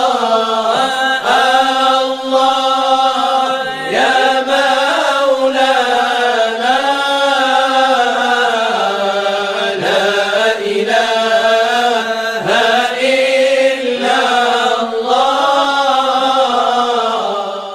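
Unaccompanied melodic vocal chanting, a single voice holding long notes with slow rising and falling ornaments; it cuts off near the end.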